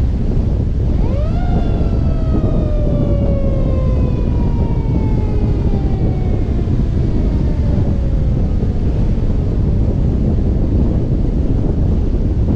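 A fire truck's mechanical siren spins up sharply about a second in, then winds down slowly and steadily in pitch over the next several seconds until it fades out. Heavy wind buffets the roof-mounted microphone at speed throughout.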